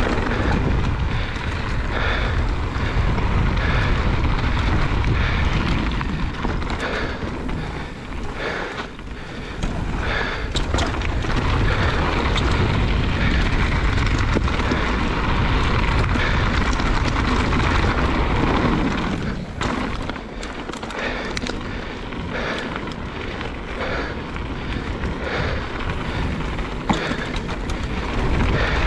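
Mountain bike ridden fast down a dirt trail: wind buffeting the microphone, tyres rolling over the ground and the bike rattling over bumps, easing off for a stretch in the last third.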